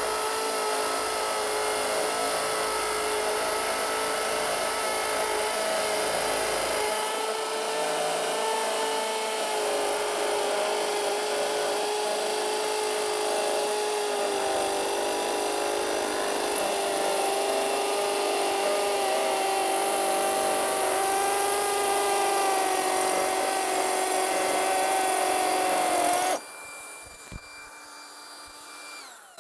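Kobalt XTR cordless hammer drill in hammer mode at speed two, drilling into a concrete block: a steady motor whine over a dense hammering rattle, its pitch sagging a little about halfway through as the load changes. It cuts off suddenly a few seconds before the end.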